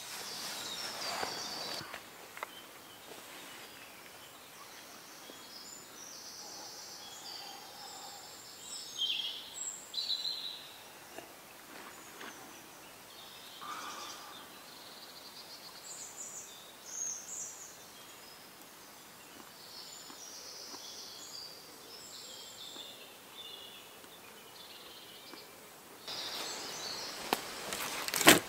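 Birds calling and singing in woodland: short, scattered high-pitched calls over a quiet background. Near the end a louder, steady hiss of noise comes in.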